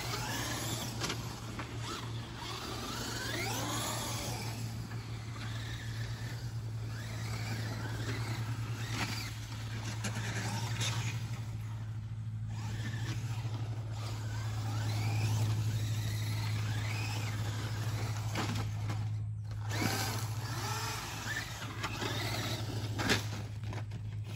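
Traxxas Unlimited Desert Racer RC trucks driven on a dirt track. Their brushless electric motors whine, rising and falling in pitch again and again with the throttle, over a steady low hum.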